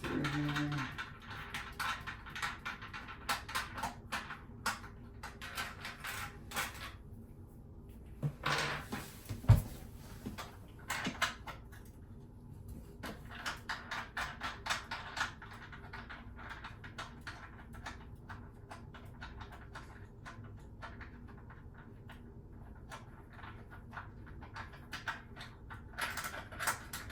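Phillips screwdriver unscrewing the toilet seat's mounting bolts: runs of quick clicking and scraping of metal on plastic, with one sharp knock about nine and a half seconds in.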